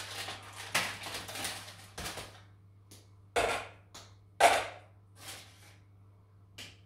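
Aluminium foil crinkling as a bar of dark chocolate is unwrapped, then four sharp clacks as pieces of chocolate are broken off and dropped into a stainless steel bowl, the loudest a little past the middle.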